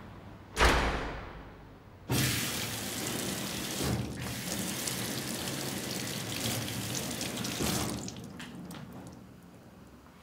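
Water running from a tap onto hands being scrubbed at a sink, starting abruptly about two seconds in and cutting off near eight seconds. Before it, a sudden loud whoosh dies away over about a second.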